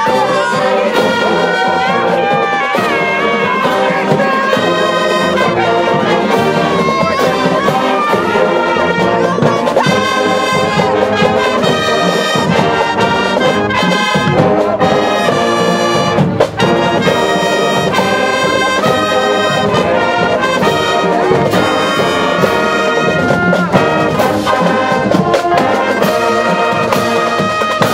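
High school marching band playing as it marches past: trumpets, mellophones and sousaphones carry the tune over a steady drum beat.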